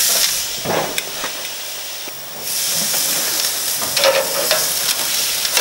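Ribeye and rump steaks sizzling on the hot grates of a gas grill as they are turned with metal tongs. The sizzle dips for about two seconds shortly after the start, then comes back, with a few light clicks of the tongs.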